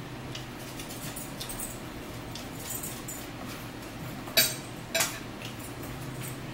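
Fork clinking against a plate while eating: faint scattered ticks, then two sharp clinks about four and a half and five seconds in, over a low steady hum.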